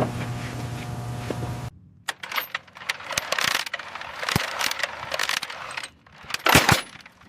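A steady machine hum that cuts off abruptly under two seconds in, then scattered sharp metallic clinks and clatter, with a loud burst of clattering near the end.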